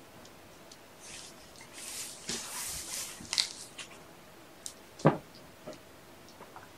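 Kittens playing with toys on carpet: a stretch of rustling and scuffling, a few light clicks, and one sharp knock about five seconds in.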